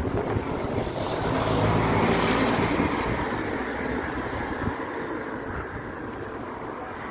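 A motor vehicle passes by, its engine and tyre noise swelling to a peak about two seconds in and then fading away.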